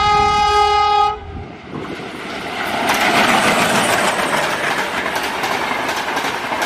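A WDP4D diesel locomotive's horn is held as one steady chord and cuts off about a second in. The express's coaches then rush past at speed, a loud rumble with repeated clatter of wheels over the rail joints.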